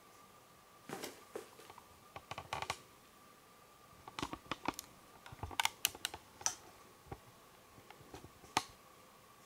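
Irregular light clicks and rustles in several short clusters, over a faint steady high tone.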